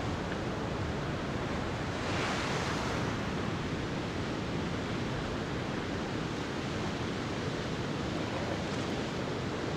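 Steady rush of surf breaking on a beach, with some wind on the microphone. A wave breaks a little louder about two seconds in.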